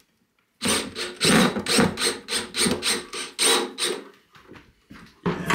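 Cordless drill-driver driving a screw through a box into a plywood wall, run as a quick series of short pulses, with one more short burst near the end.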